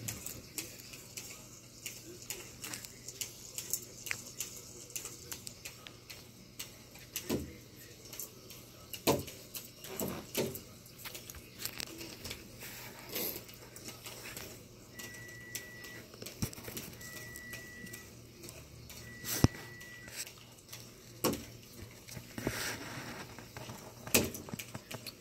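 Scattered soft thumps and clicks, irregular and of varying loudness, as kittens scamper and bat a small plastic ball about on a carpeted floor, over a low steady hum. In the second half a short high beep repeats about every two seconds.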